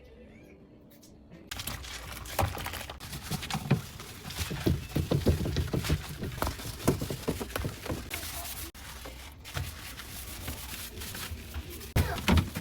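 Items being taken out of and handled in a refrigerator during cleaning: a busy run of knocks, clicks and rubbing that starts about a second and a half in.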